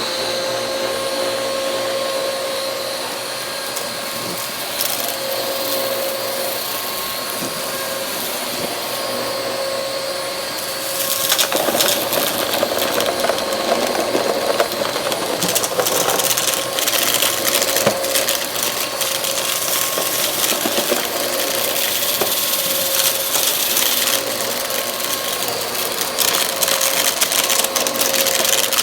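Bagless vacuum cleaner running with a steady hum and a high whine. About eleven seconds in it grows louder and rougher, with rattling and crackling as it sucks up dirt and debris.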